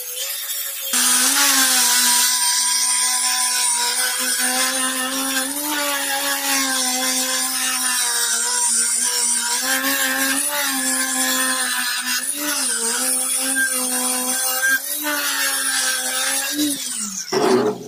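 Electric angle grinder with an abrasive disc grinding rust off the steel blade of an old meat cleaver: a steady, loud motor whine with grinding hiss, its pitch wavering slightly as the disc is pressed on the metal. It gets louder about a second in, and near the end the pitch falls as the grinder winds down before the sound cuts off.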